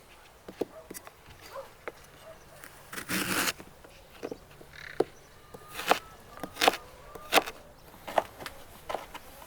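Scattered sharp knocks and clicks, with a brief rustling scrape about three seconds in and then a run of knocks roughly one every 0.7 seconds.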